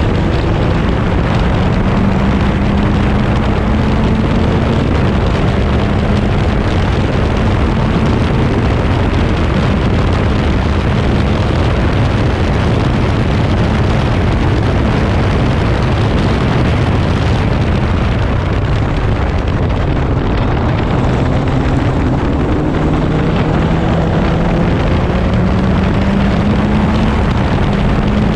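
A Crossle 32F Formula Ford's 1.6-litre Ford Kent four-cylinder engine at full throttle, heard onboard from the car, its pitch rising as it pulls down the straight, dropping as it slows about two-thirds of the way through, then rising again as it accelerates out of the corner.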